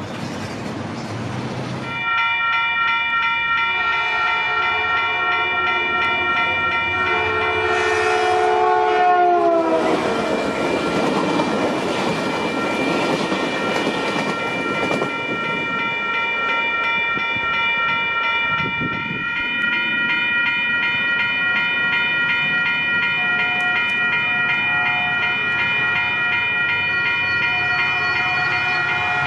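Grade-crossing bell ringing steadily while a Caltrain commuter train sounds its multi-note horn, the chord sliding down in pitch as it passes, followed by the rumble of the train going by. Later the crossing bell rings on as another approaching Caltrain train sounds its horn.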